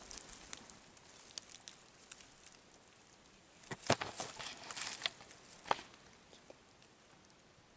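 Light crackling and snapping of dry bark and rotten wood under a kitten's paws as it climbs over a decaying tree stump, with the sharpest cracks about four seconds in and a few more up to about six seconds in.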